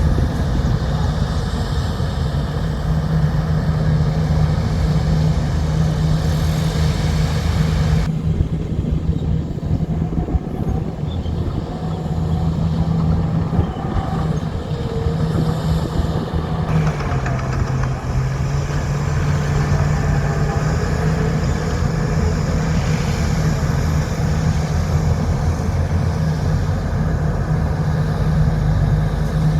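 Heavy diesel engine of earthmoving equipment, a bulldozer or dump truck, running steadily at working revs. Its pitch dips briefly a little past halfway, then recovers.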